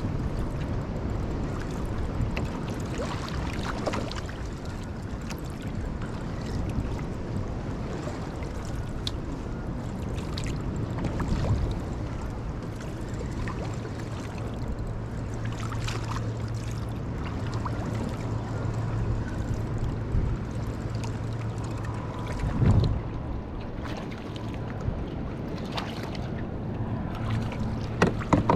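Wind buffeting the microphone and choppy sea water slapping and splashing around a kayak in rough, sloppy conditions, with scattered knocks. A steady low hum comes in about halfway through.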